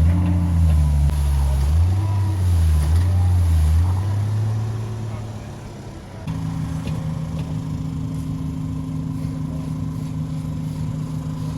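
A heavy engine running, its speed rising and falling, fading away about five seconds in. About six seconds in it gives way abruptly to an engine running at a steady pitch.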